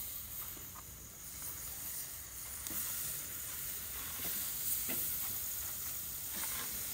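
Marinated chicken sizzling on a hot barbecue grill, a steady hiss that grows louder about two seconds in and then holds.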